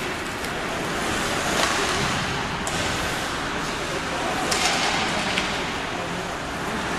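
Ice hockey play on a rink: skate blades scraping the ice as a steady hiss, with a few sharp clacks of sticks and puck, and spectators talking faintly.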